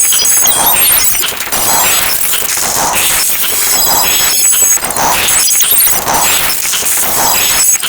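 Loud, dense jumble of many overlapping sound effects, with a pulse repeating about twice a second.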